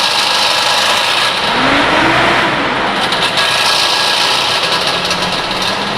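Nissan Frontier D40 engine running with a loud, airy roar from the radiator fan. The pitch rises and falls once, about two seconds in, as the engine is briefly revved. The noise comes from a seized viscous fan clutch that keeps the fan locked to engine speed.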